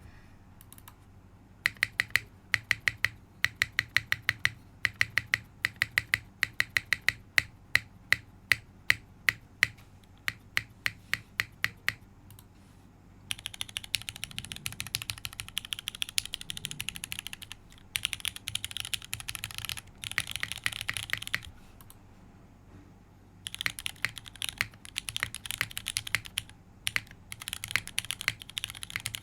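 Custom mechanical keyboard with modded MX2A Black switches, a carbon fibre plate and GMK keycaps being typed on: first single key presses, about three a second, then fast continuous typing from about halfway, with a short pause between two runs.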